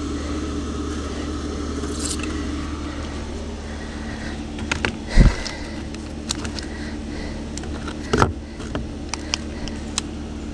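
Concrete block and brick spacers scraping and knocking as they are handled and set down on concrete blocks, with a heavy thump about five seconds in, another about eight seconds in, and a few sharp clicks between them. A steady low hum runs underneath.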